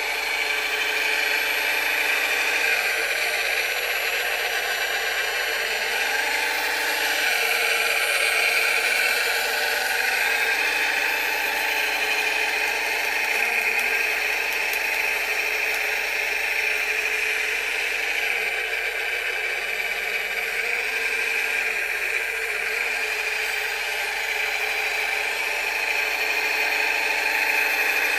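Radio-controlled scale Cat 966 wheel loader running: a steady high whine from its electric drive and hydraulics. Lower tones slide up and down as it drives and works the bucket.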